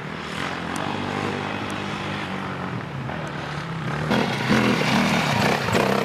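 Dirt bike engines running under load up a steep rocky climb, first at a distance, then louder about four seconds in as a bike passes close.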